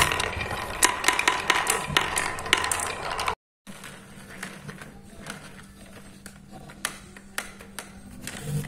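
Many marbles rolling and clattering down a wavy wooden marble-run track, a dense rattle of clicks. After a brief cut to silence about three and a half seconds in, only scattered single clicks and knocks of balls on wood, over a faint steady hum.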